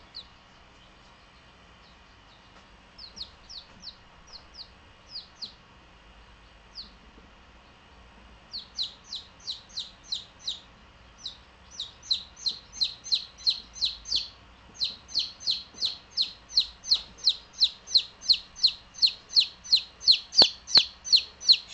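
A baby chick peeping: short high notes that slide downward. A few come scattered at first, then from about eight seconds in a fast, insistent run of about three peeps a second, growing louder.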